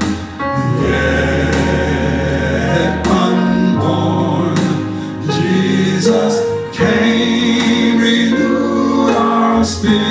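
Gospel praise music: singing voices held over instrumental backing, with sustained bass notes and chords that change every few seconds.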